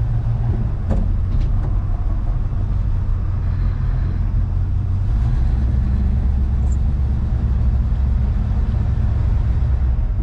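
1970 Chevrolet C10 pickup driving along at a steady speed: a continuous low engine and road rumble.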